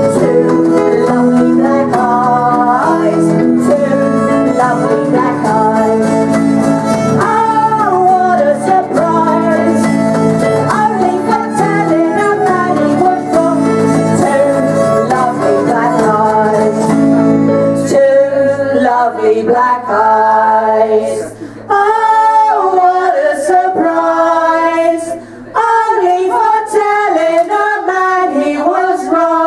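Women's voices singing a music hall song, accompanied by acoustic guitar and fiddle. About two thirds of the way in the instruments drop out and the voices carry on unaccompanied, with two short pauses between lines.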